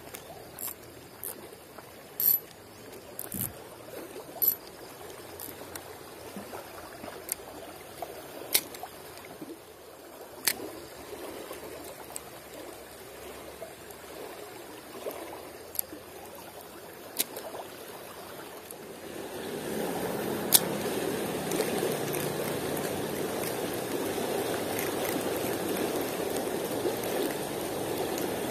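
Shallow rocky stream flowing, with scattered sharp clicks over the water sound. About two-thirds of the way in the water becomes clearly louder and fuller, a steady rush of fast-moving water.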